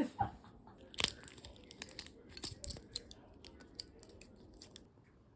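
Irregular crinkling and clicking of plastic packaging being handled, with a sharper click about a second in, thinning out near the end.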